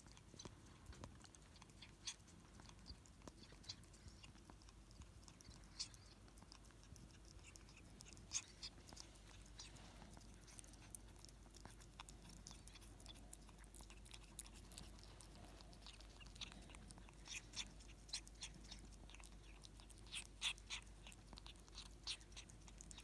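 Ferret licking and chewing Christmas pudding and cream from a bowl: soft, wet, irregular mouth clicks and smacks, coming in quick clusters that are busiest in the last third.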